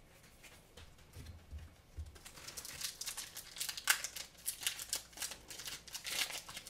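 Foil wrapper of a Pokémon trading-card booster pack crinkling as it is handled and opened. A few soft low thumps come in the first two seconds, then from about two seconds in a dense run of crackles.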